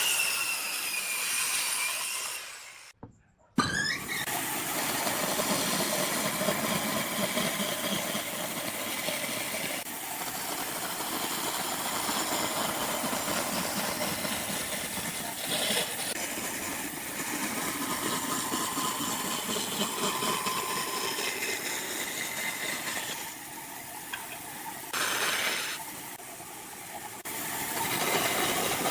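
Woodworking machinery running: a steady mechanical din with shifting whines. It cuts off abruptly for a moment about three seconds in and drops again near the end.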